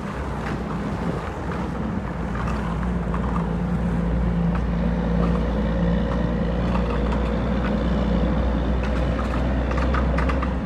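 Steady low drone of a vehicle's engine and road noise heard from inside the cab while driving, building slightly over the first few seconds, with a few faint rattles.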